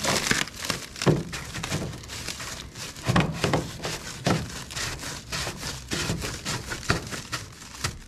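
Plastic stretch wrap and packing bags crinkling and rustling as a hand works among them, with irregular light knocks and clicks, the strongest about one, three and four seconds in.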